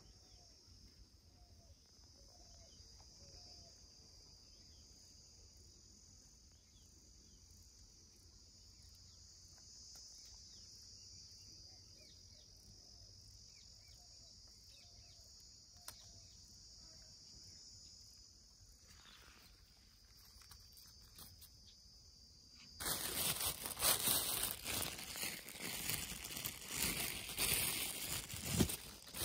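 A steady high-pitched drone of insects calling in the background, then about 23 seconds in, loud irregular rustling and crackling of grass brushed close to the microphone.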